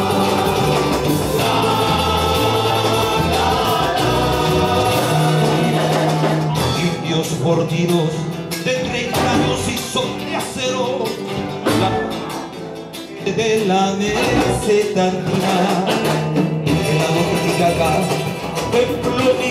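Live band playing with several men singing together over acoustic and electric guitars, violin and a bass line. The music drops back briefly about two-thirds of the way through, then comes back in full.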